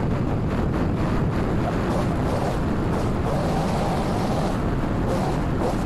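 Gas-powered pole saw engine running steadily at a constant level.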